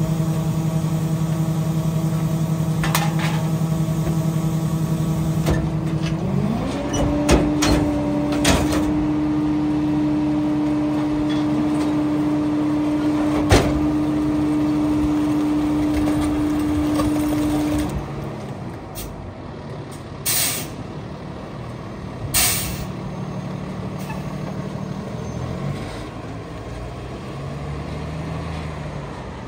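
Freightliner rear-loader garbage truck's engine running steadily, then revving higher about six seconds in as the truck moves off, with a few sharp metallic clanks. The engine note then drops and fades as it drives away, and two short air-brake hisses come a couple of seconds apart.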